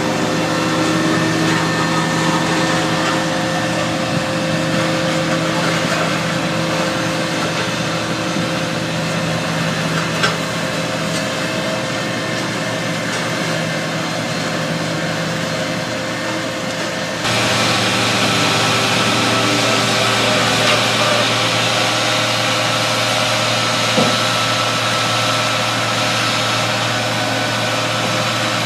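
Diesel engine of a Caterpillar AP1000D asphalt paver running steadily with a constant hum. About two-thirds of the way through the sound changes abruptly to a louder hiss over a deeper steady hum.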